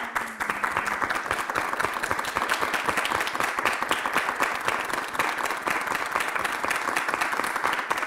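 A group of people applauding, a dense steady clapping that keeps on without a break.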